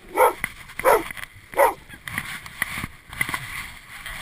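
A dog barking three times in quick succession, loud, short barks about two-thirds of a second apart, then quieter.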